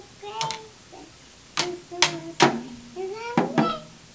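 A child striking a toy drum kit with sticks: three quick hits about a second and a half in, then two more near the end. A child's voice sounds briefly near the start and again just before the last two hits.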